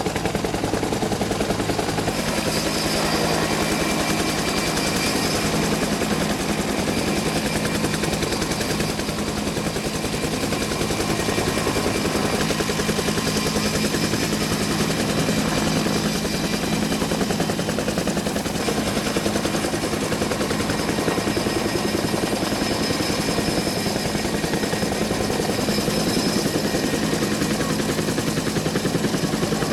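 Bell UH-1 Huey helicopter hovering, its two-bladed main rotor beating rapidly and steadily over a constant turbine whine.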